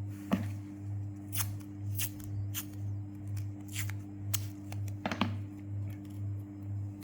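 Small plastic Rubik's cube pieces clicking and snapping, several separate clicks a second or so apart, as the 4x4 cube is handled and its pieces are fitted. Under them runs a steady low humming drone that pulses about one and a half times a second.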